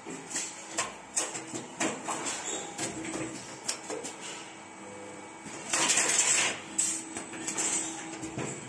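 2D CNC wire bending machine working steel wire: its bending head and pneumatic clamps click and clunk repeatedly as the wire is fed and bent. A steady hum comes in about five seconds in, and a loud burst of hissing follows about a second later.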